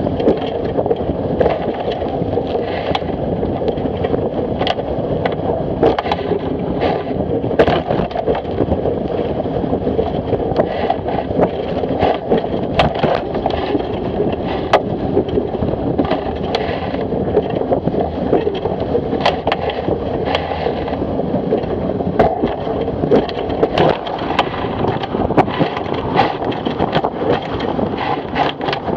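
Wind buffeting the microphone and water rushing past the hull of a Fireball racing dinghy sailing fast in a strong breeze, with frequent sharp slaps of waves and spray against the hull at irregular intervals.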